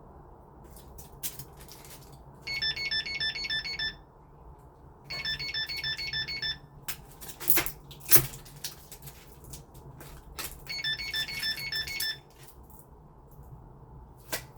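Yale Conexis L2 smart lock beeping in three quick runs of rapid electronic beeps, about six a second, as a key tag is held to it. Two sharp clicks fall between the second and third runs.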